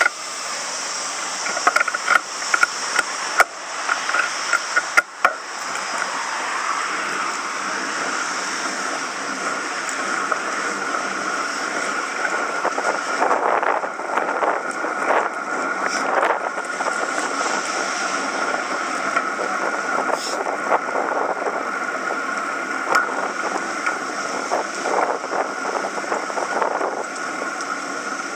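Wind rushing over the microphone and road noise from a bicycle ride, with a steady high whine and a run of sharp clicks in the first few seconds.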